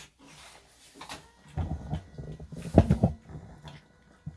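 A small dog squirming and scuffling against the groomer's hold: irregular rustling and bumping, with two louder scuffles in the middle.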